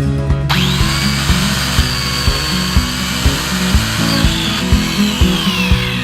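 Electric pole saw's 710-watt motor and chain running: a high whine that spins up quickly about half a second in, holds steady, and winds down near the end. Background music with a steady beat plays under it.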